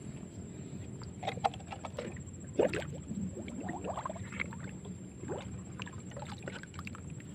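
Water lapping and gurgling close by, with a scatter of small plops and drips over a steady low rumble.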